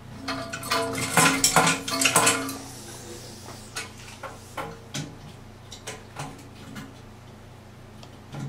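Small metal drain fittings clinking and rattling as they are handled inside a bathroom basin's vanity cabinet. A quick run of loud clinks comes in the first couple of seconds, then scattered single clicks.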